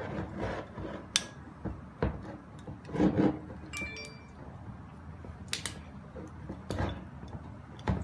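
Hands handling a plastic EAS security bottle-neck tag on a glass bottle: rustling and scattered sharp clicks and taps as the tag's loop is put around the neck and pulled tight. There is a brief ringing clink about four seconds in.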